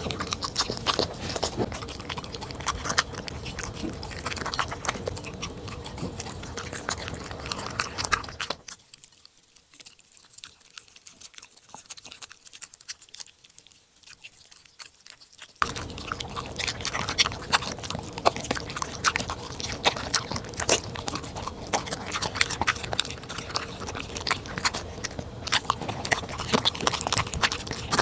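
A corgi chewing and crunching food close to the microphone, with many sharp irregular crunches. There is a quieter stretch of softer chewing lasting about seven seconds in the middle.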